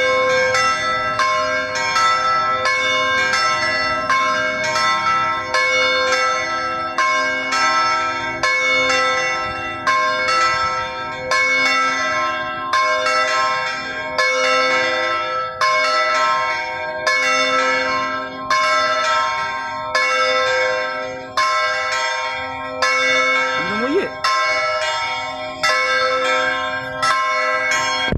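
Church bells ringing in a steady, unbroken sequence of strikes, about two a second, each note ringing on into the next.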